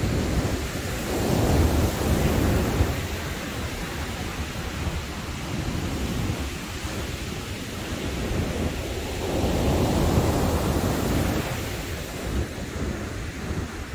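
Heavy surf breaking on a beach with wind rushing over the microphone, a steady deep rumble and hiss that swells louder twice, about a second in and again near ten seconds.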